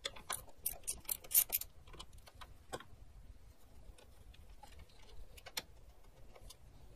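Ratchet with a 10 mm socket clicking while a fender bolt is backed out. A quick run of clicks comes in the first second and a half, then scattered single clicks.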